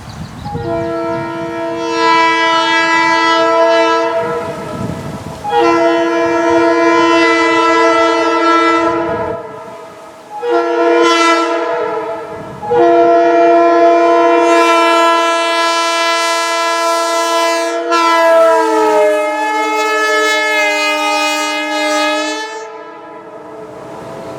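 Locomotive chime air horn sounding a series of long blasts, each a steady chord of several notes, with short breaks between them. The chord shifts a little partway through the last long blast.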